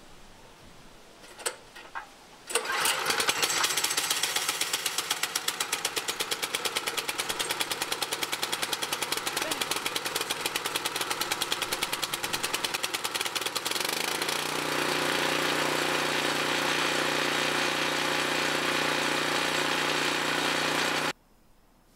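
Small single-cylinder gasoline engine on a homemade bandsaw mill, starting about two and a half seconds in after a couple of clicks, then running with a fast, even firing pulse and turning the mill's belt-driven band wheels. About 14 seconds in its note settles into a steadier, smoother run, and it cuts off suddenly near the end.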